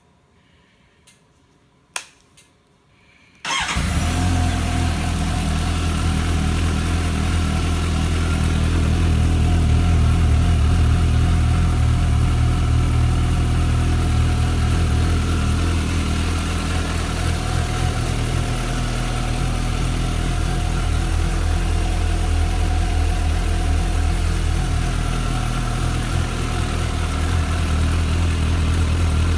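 Suzuki GSX-S750's inline-four engine with its stock muffler: after a few clicks it starts about three and a half seconds in, then idles steadily.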